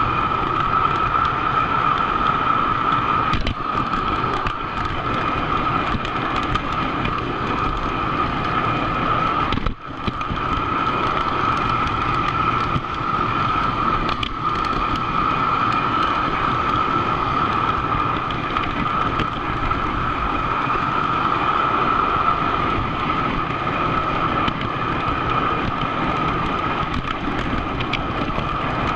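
O scale model train running along the track, heard from on board: a steady rumble of wheels on rail with a constant whine, dipping for a moment about ten seconds in.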